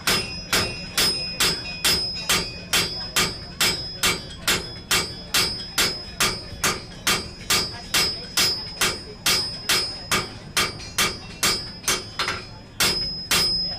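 A blacksmith's hand hammer strikes hot steel on an anvil in a steady rhythm of a little over two blows a second. Each blow leaves a bright metallic ring.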